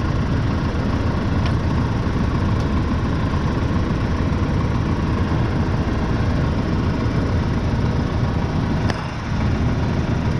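Diesel tractor engine idling steadily, with a few faint clicks over it and a brief dip in level about nine seconds in.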